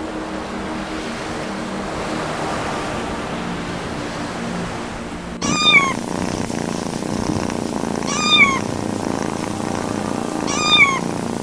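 Kitten meowing three times, about two and a half seconds apart: short, high-pitched meows that rise and fall. For the first five seconds or so there is only a steady background hiss before the meows begin.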